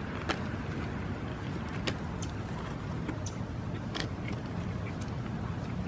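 Person chewing a sub sandwich, with scattered faint mouth clicks, over a steady low rumble.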